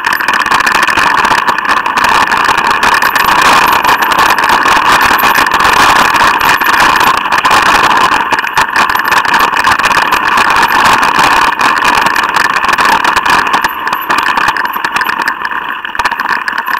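Mountain bike riding fast down a rough dirt trail: a loud, steady rushing noise with constant rattling knocks from the bumps in the ground.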